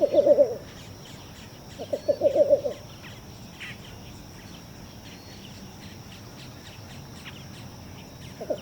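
Least bittern giving its defensive call: short bursts of rapid, low clucking notes, one at the start, another about two seconds in and a third near the end. A steady high insect buzz and faint chirps run underneath.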